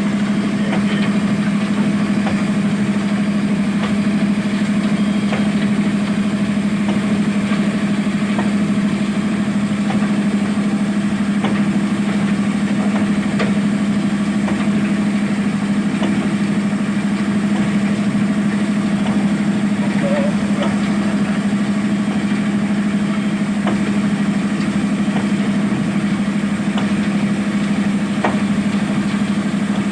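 Zoomlion ZE215E excavator's diesel engine running at a steady, unchanging speed, a constant low hum with no revving.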